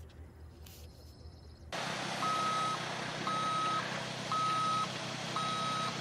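Ready-mix concrete mixer truck's backup alarm beeping about once a second, each beep about half a second long, over the steady running of the truck's engine. The beeping and engine noise start suddenly about two seconds in, after a quieter opening.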